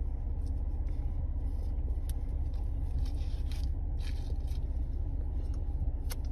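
Steady low hum inside a car's cabin, with faint scattered rustles and small clicks from a child handling and eating powdered candy from a packet.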